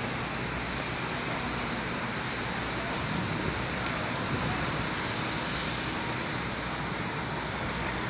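Steady rushing noise of wind on the microphone outdoors, over a low steady hum.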